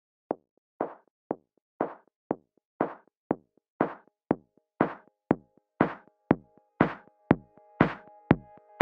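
Electronic background music: a drum-machine beat with hits about twice a second, growing brighter, and held synth chords coming in about two-thirds of the way through.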